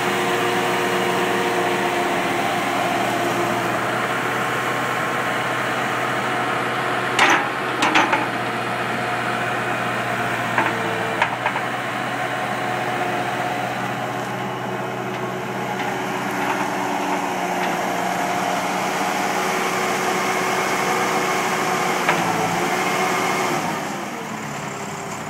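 The 73 hp Deutz diesel engine of a 1999 Bobcat 863 skid steer loader running at a steady speed. There are a few sharp knocks about seven to eight seconds in and again around eleven seconds. Near the end the engine note dips and the sound gets quieter.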